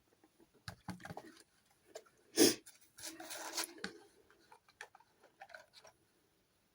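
Small wargaming miniatures and their packaging being handled on a tabletop: scattered light clicks and taps, one louder knock about two and a half seconds in, then a brief rustle.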